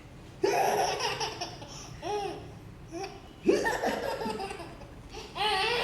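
A baby laughing in several short bursts with pauses between them.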